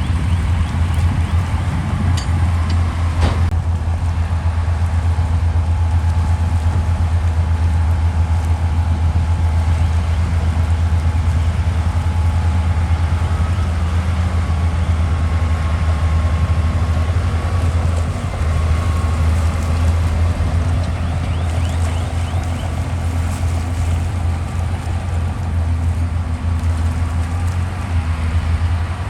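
Heavy diesel earthmoving machinery running steadily under load, with a deep, unbroken engine hum and a faint whine above it. A single sharp knock comes about three seconds in.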